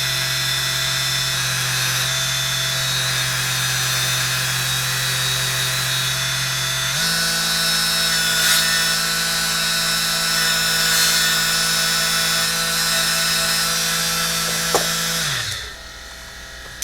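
Slot-car tire truer's small electric motor spinning a 1/32 scale tire against its sanding pad, rounding off the tire's edge: a steady hum under a gritty sanding hiss. The hum steps up in pitch about seven seconds in, then the motor winds down near the end.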